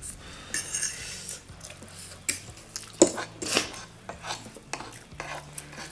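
Forks clinking and scraping on ceramic plates as several people eat spicy instant ramen, with noodles being slurped.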